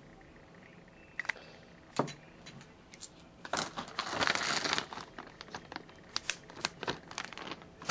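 Glossy black plastic bag crinkling as it is handled and lifted away. A few sharp crackles come first, then a longer stretch of dense crinkling around the middle, then scattered crackles.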